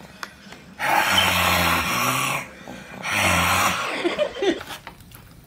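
A man snoring loudly twice, each a long rasping breath with a low buzz, the first about one and a half seconds long and the second about a second.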